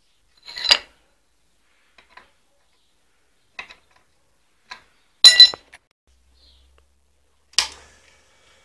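Hard objects, sounding like metal, clinking and tapping on each other as they are handled. There are a few sharp clinks and light taps; the loudest is a ringing double clink about five seconds in, and another comes near the end.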